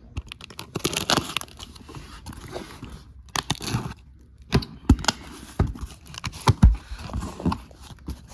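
A cardboard box being opened and rummaged through: packaging crinkling and tearing, with scattered sharp knocks and clicks as the packaged die-cast cars inside are handled, the loudest knocks near the end.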